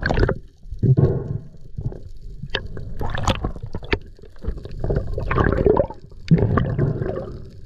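Muffled underwater water noise picked up by a camera in its housing: irregular gurgling, rushing surges that swell and fade several times as the diver swims.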